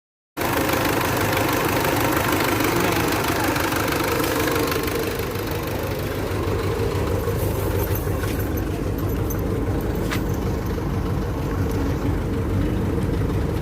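Mitsubishi car engine idling steadily, beginning abruptly just after the start, with a couple of faint clicks about two-thirds of the way through.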